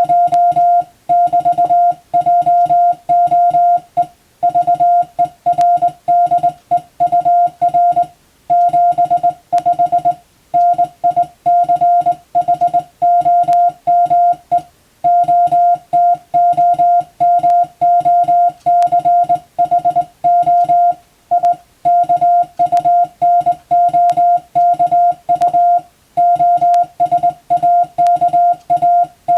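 Morse code (CW) sent as a keyed tone: short and long beeps of one steady mid pitch in quick succession, with brief pauses between groups. This is English-text telegram sending practice.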